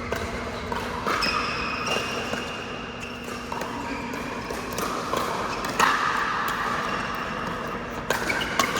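Pickleball rally on an indoor court: sharp pops of paddles striking the plastic ball every second or few, the loudest about six seconds in, echoing in the hall. Between the hits come high squeaks of shoes on the court floor.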